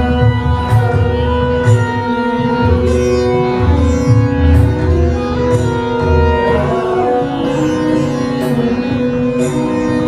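Background instrumental music: a melody stepping in pitch over a held drone, with a steady low beat.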